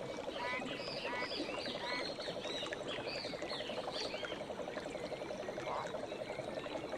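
Wild birds calling in quick repeated short phrases, over a steady fast low pulsing trill and a wash of running water.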